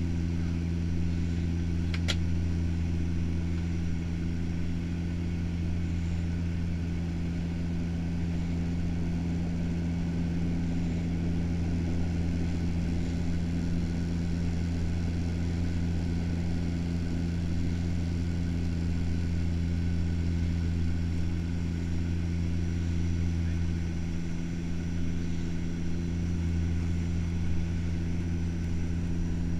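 Turboprop airliner's engine and propeller droning steadily, heard inside the passenger cabin on approach: a deep, even hum with steady overtones above it. A single brief click about two seconds in.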